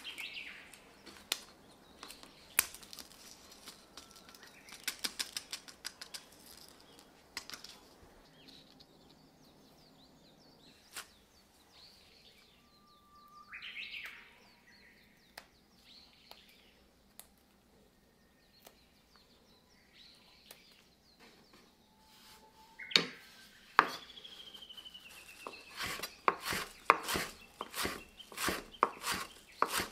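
Chef's knife chopping Italian parsley on a wooden cutting board in a quick regular rhythm of about three strikes a second, coming in near the end. Before that, sparse light taps and handling sounds on the board, with a few faint bird chirps now and then.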